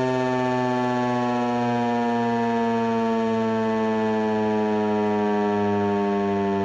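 American Signal T-128 outdoor warning siren sounding during a test, a loud steady tone whose pitch slowly falls.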